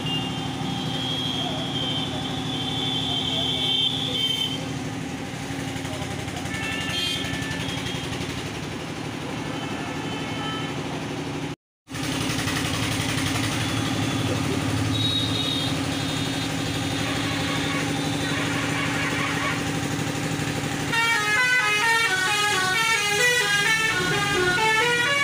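Street traffic with vehicle horns honking, sustained horn tones sounding over the run of vehicles, and a quick warbling horn pattern near the end.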